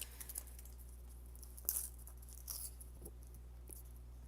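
Paper and cardstock being handled and pressed together, with a few short, faint crinkles and rustles.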